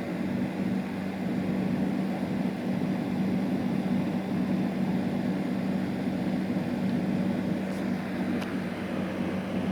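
A steady low hum that holds an even level throughout, with two faint ticks about eight seconds in.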